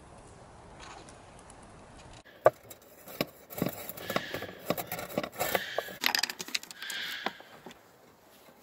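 Pink plastic straw and stick tools clicking and scraping against a clear acrylic puzzle box and rustling through a thin paper membrane as a Goffin's cockatoo pokes them in: a rapid run of sharp taps with bursts of crinkling. The first two seconds hold only faint background hiss.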